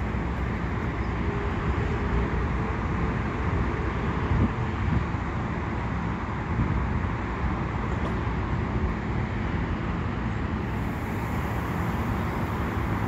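EXO double-deck commuter train at the station platform, giving a steady low rumble and hum of running equipment with one brief knock about four seconds in.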